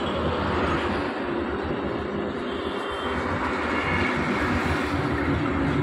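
Steady rushing noise of road traffic on the highway beside the parked truck, with no engine tone standing out.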